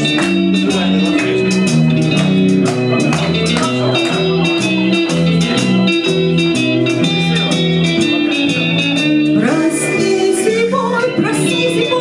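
Instrumental break of a pop song's backing track: a steady drum beat with bass and guitar. A woman's singing comes back in near the end.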